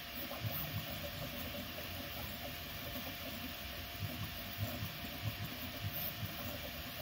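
Original Prusa i3 3D printer at work: its stepper motors buzz in short, uneven bursts as the print head moves back and forth, over a steady whir of cooling fans.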